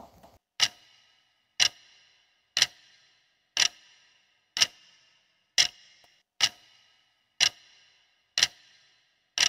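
Clock-tick sound effect counting down a quiz answer timer: sharp ticks, one a second, about ten in all.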